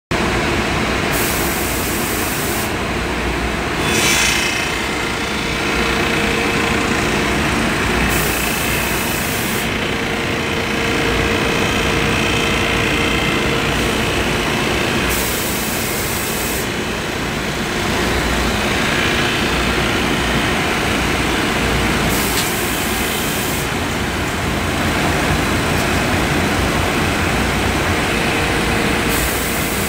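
Viet wide-belt planer-sander running steadily, its motors and conveyor making a loud, even machine noise. A high hiss of air comes in about every seven seconds for a second or two, and the noise swells briefly about four seconds in.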